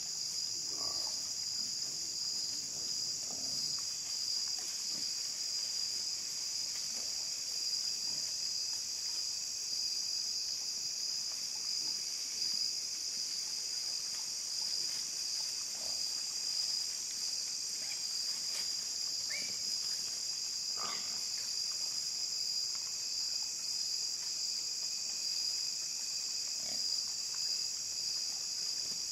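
Steady high chorus of crickets and other insects at dusk, with faint scattered grunts from a group of feral hogs feeding close by and a couple of sharper hog calls about two-thirds of the way in.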